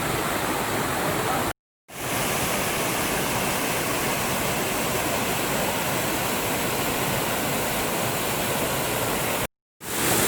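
Steady rush of a waterfall, with the sound cutting out twice for a split second: once near two seconds in and once near the end.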